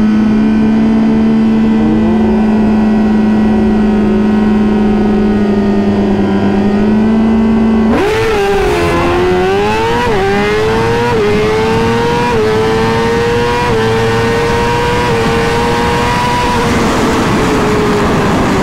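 2020 Suzuki GSX-R1000's inline-four held at steady high revs on the start line for about eight seconds, then launching into a full-throttle quarter-mile drag pass. The pitch climbs and drops sharply at each of five quick upshifts about a second apart. Near the end the revs level off and fall as the throttle closes, with a rushing hiss building behind the engine once the bike is moving.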